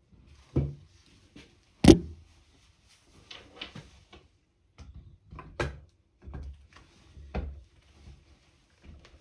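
Knocks, clunks and rubbing as the wooden stock of an Air Arms TX200 air rifle is handled and fitted back onto the metal action, about five distinct knocks with the sharpest one about two seconds in.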